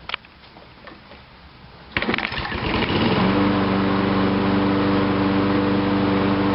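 Toro self-propelled mulching lawn mower engine started about two seconds in: it catches at once, speeds up over about a second and then runs loud and steady at a constant speed, its first run after the carburetor was taken off and refitted.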